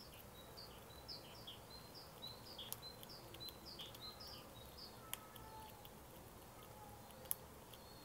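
Faint bird song: a rapid run of short, high chirps repeated over roughly the first four and a half seconds, with a few scattered faint clicks.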